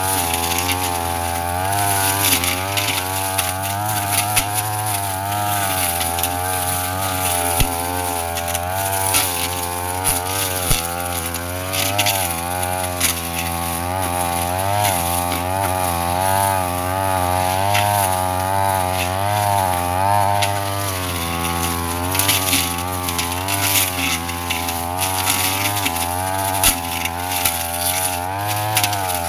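Brush cutter engine running at high revs while cutting grass, its pitch rising and falling continually as the blade meets the grass, with crackling from the cut stems.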